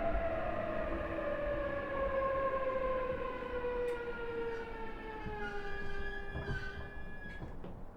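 E233-series 3000 electric train's traction motors and inverter whining in a falling pitch as the train brakes to a stop at the terminus. The whine fades out near the end, with a few clicks as the train comes to rest.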